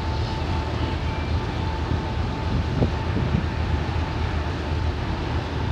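A boat's engine running with a steady low rumble, under the rush of wind and the churning wake.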